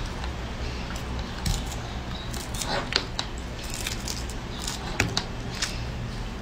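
Lychee rinds being cracked and peeled by hand: scattered short crackling clicks, the sharpest about three seconds and five seconds in, over a steady low hum.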